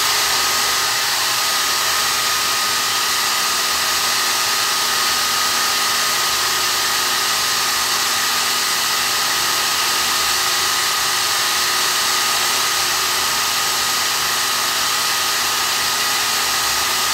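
Bosch GWS 9-125 S angle grinder running at a steady speed with no load, spinning a flexible shaft and its diamond-burr handpiece. It makes a steady high whine over the rush of the motor.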